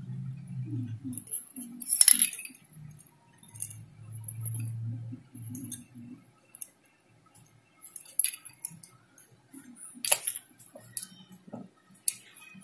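Small tools and parts handled on a tabletop while a lamp socket is wired: scattered sharp clicks and clinks of a screwdriver, wire and plastic socket, the loudest about two seconds in and again about ten seconds in. A low hum comes and goes underneath.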